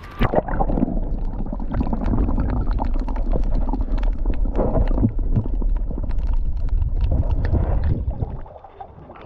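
Water noise picked up by a submerged camera: a heavy muffled rumble and gurgling with many sharp clicks and crackles through it, dropping away abruptly about eight seconds in.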